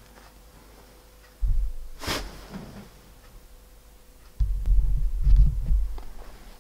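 Low thumps and rumbling handling noise as a canvas sneaker is turned over in the hands close to the microphone, with a short breathy whoosh about two seconds in and the loudest stretch of rumbling from about four and a half to six seconds in.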